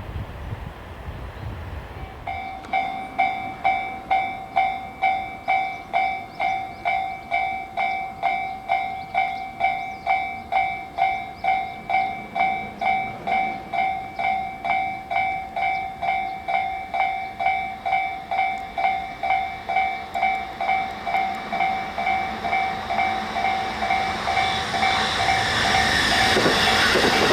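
Japanese level-crossing warning bell starting about two seconds in, ringing steadily at about two strikes a second. Near the end the noise of an approaching train rises under it.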